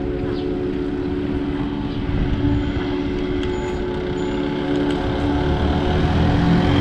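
An engine running at a steady speed with a constant hum, over a rough low wind and road rumble. Near the end a lower engine note joins and the sound grows a little louder.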